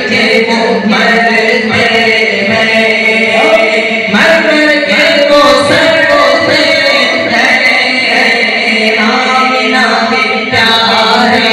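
Men singing a devotional naat through microphones and a loudspeaker system, with several voices chanting together in one continuous stretch of song.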